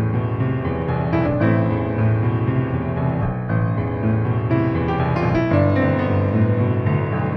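Grand piano playing a slow instrumental passage of a hymn, with sustained low bass notes under the melody.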